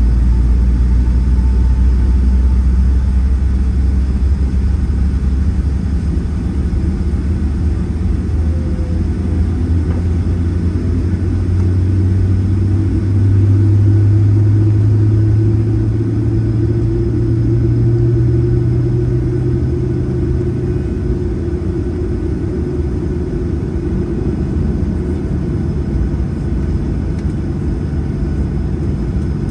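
Cabin noise of a Boeing 737-700 taxiing, its CFM56-7B engines running at low power: a steady low rumble and hum, with a low tone swelling for several seconds about halfway through before easing off.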